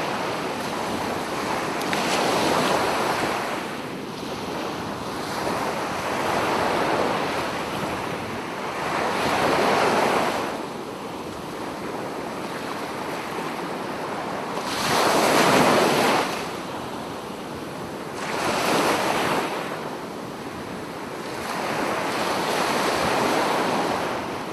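Sea waves breaking on a beach, the surf swelling and washing in roughly every three to four seconds, with one larger wave breaking about fifteen seconds in. Wind buffets the microphone throughout.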